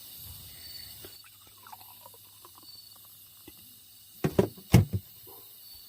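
Faint small clinks, then a quick cluster of three or four sharp knocks about four seconds in.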